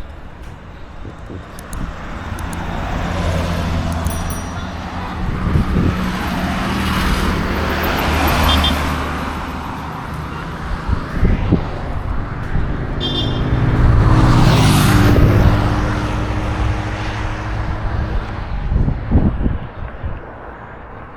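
Road traffic: two motor vehicles pass one after the other, the engine sound and road noise of each building up and then fading away. The second pass is the louder, peaking about fourteen to fifteen seconds in.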